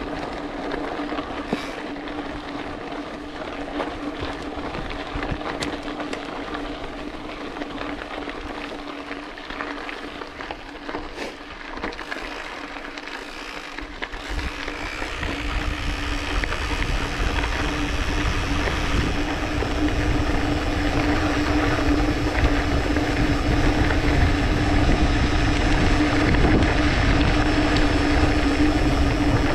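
Mountain bike rolling down a gravel track: tyres crunching and rattling over loose stones, with a steady hum throughout. From about halfway, wind buffeting the action-camera microphone grows into a loud, steady rumble as the bike picks up speed.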